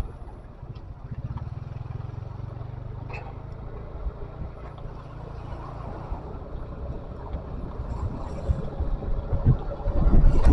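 Low, steady rumble of a running vehicle engine, with noise that grows louder toward the end.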